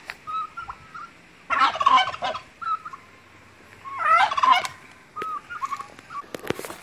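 Domestic turkey gobbling twice, about a second and a half in and again about four seconds in, each a quick rattling burst. Short single calls are heard between the gobbles.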